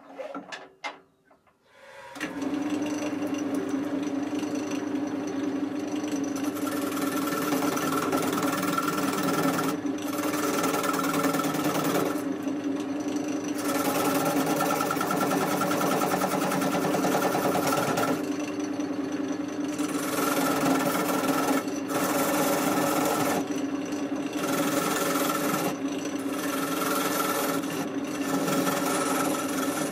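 A few clicks, then about two seconds in a wood lathe starts up and runs with a steady motor hum while a turning tool cuts the face of a spinning oak blank. The cutting is a rough scraping that stops for a moment several times as the tool is lifted between passes.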